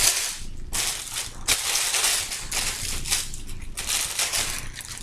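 Clear plastic wrapping crinkling and crackling in repeated irregular bursts as it is pulled and stripped off a fishing rod.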